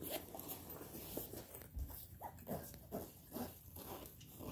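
A dog making a string of short vocal sounds, about seven of them a fraction of a second apart.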